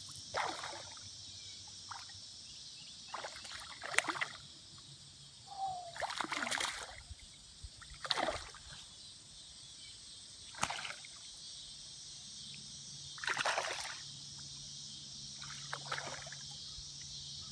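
A hooked fish thrashing at the water surface, splashing in short bursts about every one to three seconds, over a steady high insect chorus.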